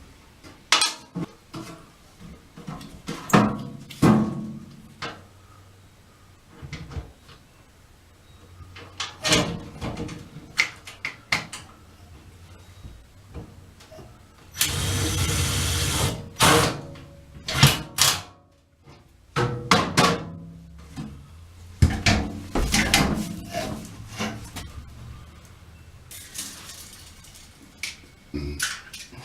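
Knocks, clicks and clatter of hands working metal brackets and hardware against the trailer wall, with one steady, noisy burst of about a second and a half midway.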